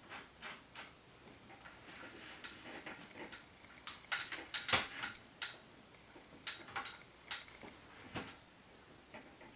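Irregular clicks and taps of metal tripod-stand parts and screws being handled and fitted, a few light ticks at first and a louder cluster about four to five seconds in.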